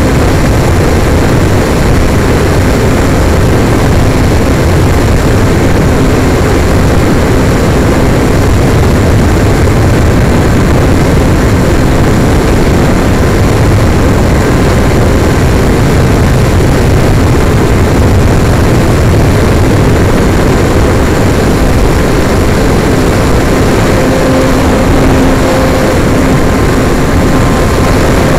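RC airplane's motor and propeller running steadily in flight, heard from a camera on board the plane, with heavy wind rush over the microphone.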